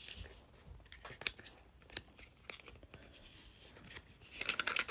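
Advent calendar packaging being handled and unwrapped: scattered light clicks and crackles of cardboard and plastic, then a burst of denser crinkling rustle near the end.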